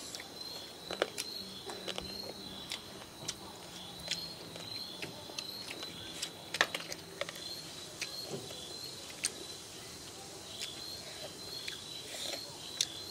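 Soft chewing and lip-smacking of children eating rice and chicken with their hands: irregular short wet clicks. Under it, insects chirp steadily at a high pitch.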